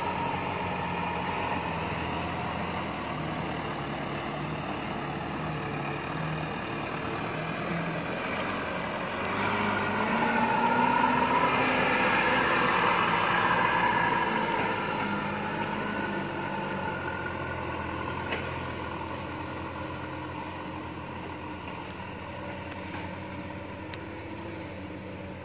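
Fully loaded light dump truck's diesel engine pulling up a steep dirt incline. It grows louder from about nine seconds in, then fades as the truck moves away.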